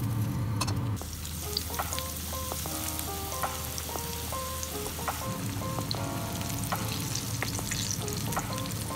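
Burdock root strips deep-frying in a pan of hot oil: a steady sizzle with small crackles and pops. Soft background music with a simple melody plays along with it from about a second and a half in.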